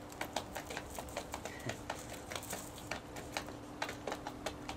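Hens pecking food from a dish, their beaks tapping it in quick, irregular clicks, several a second.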